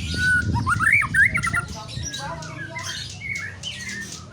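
White-rumped shama calling: a quick run of rising whistled notes in the first second and a half, among harsh, scratchy chattering notes, over a low background rumble.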